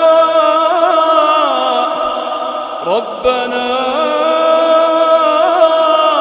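Quran recitation: a reciter's voice chanting in long held, ornamented notes, drawing out the phrase melodically. The voice breaks off briefly about three seconds in with a quick upward slide, then resumes.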